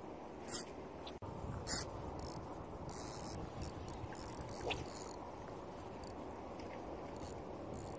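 Fishing reel clicking in short high-pitched bursts, about a dozen of them, over a steady low background rumble.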